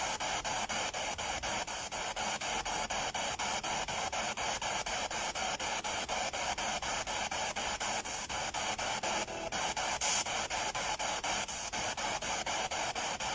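Spirit box, a radio rapidly sweeping through stations, running: a steady hiss of static chopped into a pulse about six times a second.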